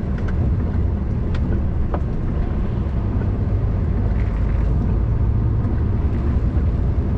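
Articulated lorry's diesel engine and road noise heard from inside the cab while driving, a steady low rumble.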